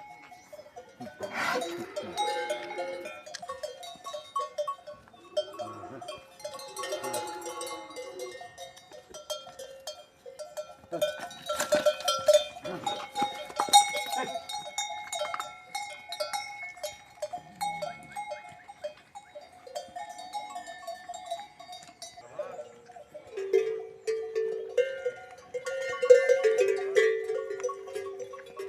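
Bells on grazing cattle clanking and ringing irregularly, with livestock calling near the end.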